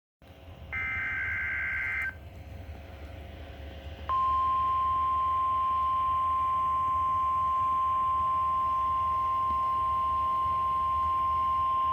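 NOAA Weather Radio alert: a harsh electronic data burst, the SAME digital header, then after a short gap the steady single-pitch warning alarm tone, starting about four seconds in.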